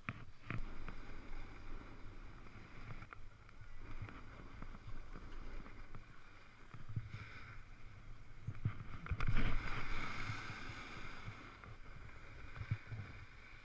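Edges and base scraping and hissing over packed snow as the rider carves downhill, with wind buffeting the microphone; the scrape swells to its loudest about nine seconds in.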